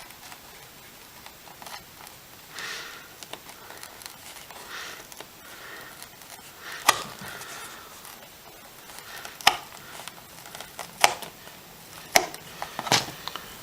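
Wire strippers working the insulation off a thick black battery-lead wire: a few soft scraping rustles, then five sharp clicks spaced a second or so apart over the second half.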